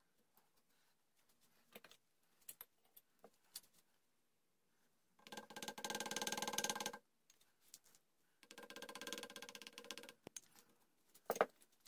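A hand carving tool scraping along a wooden gunstock in two long strokes, each under two seconds, with light ticks of the tool before them and a sharp tap near the end.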